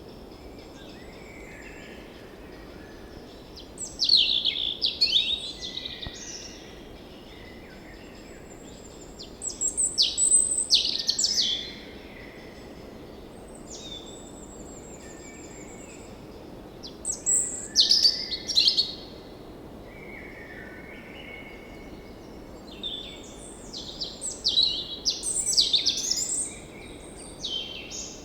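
Songbirds singing in four bouts of quick, high chirps and trills a few seconds apart, over a steady low hiss of background noise.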